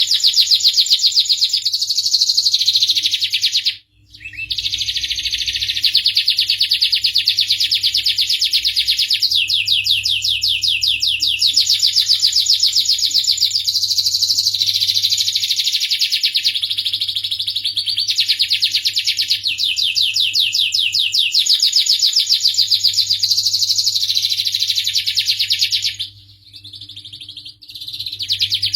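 Domestic canary singing long, rapid, high trilling phrases almost without a break, pausing briefly about four seconds in and again near the end.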